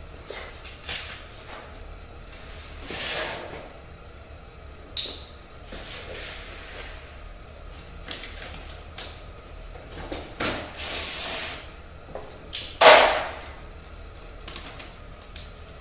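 A saw blade being unpacked: packaging handled in irregular rustles and swishes with light knocks and clicks between them, the loudest swish about three-quarters of the way through.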